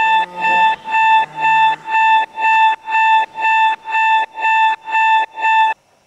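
Electronic alarm clock beeping: a steady run of single high beeps, about two a second, that stops suddenly a little before the end.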